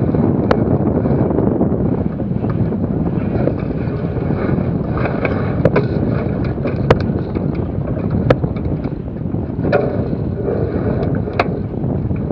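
Wind rushing steadily over the microphone of a mast-top camera on a racing sailboat, with six sharp clicks scattered through it.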